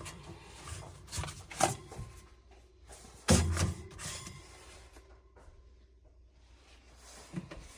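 Door of a vintage Crosley refrigerator being handled: a few light clicks, then a heavy thunk about three seconds in as it shuts, and a small knock near the end.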